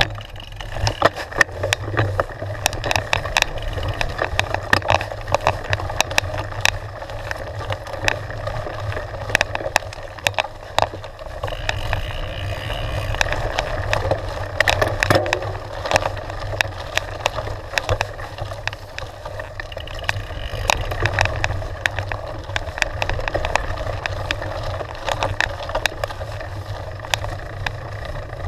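Mountain bike riding down a loose gravel trail: knobbly tyres crunching over stones and the bike rattling, with frequent sharp clicks and knocks over a steady low rumble.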